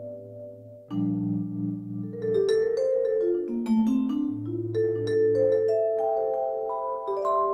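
Sampled vibraphone from a gigKAT 2 sound module, played with mallets on a malletKAT controller. Sustained chords over a low held note have a pulsing vibrato. A new chord comes in about a second in, a quick descending run of notes follows around the middle, then a rising line of notes toward the end.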